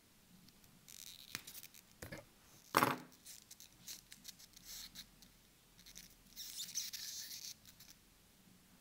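A small pair of cutting pliers snips once with a sharp snap, cutting a plastic tag at the watch strap, among a few lighter clicks. Later a leather watch strap rubs and scratches briefly as it is pulled through its buckle and fastened.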